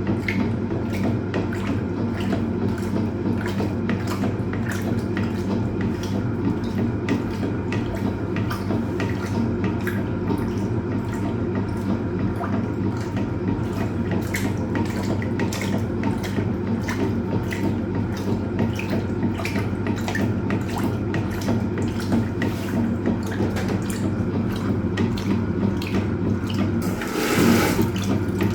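Hoover Automatic 820 top-loading washing machine agitating a full load in its wash cycle: a steady motor hum with water sloshing and splashing in the tub, and a louder splash of water near the end.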